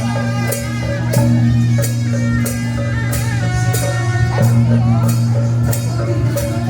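Music with guitar, a sustained bass and a steady drum beat about twice a second.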